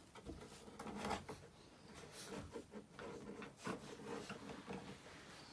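Faint rustling and scuffing of straw bedding as a puppy shifts and moves on it, with scattered soft rubs and clicks.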